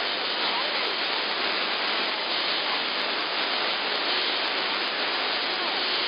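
CB radio static received in AM on channel 11 (27.085 MHz) through a software-defined radio: a steady hiss with a few faint wavering tones from distant skip signals buried in the noise.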